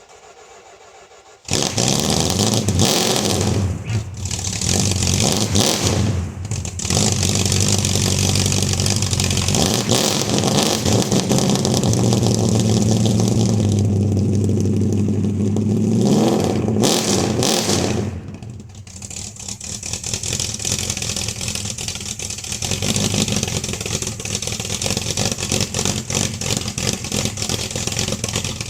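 1971 Dodge Dart's 318 V8 engine catching about a second and a half in, then running fast with blips of throttle. After a brief rise in speed it drops back to a lower, steadier idle.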